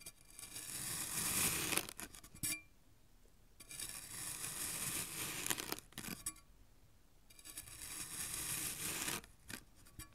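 Knife blade slicing down through a packed block of sand in three slow strokes of about two seconds each, each a gritty, grainy hiss. Small clicks of the blade sound between the strokes.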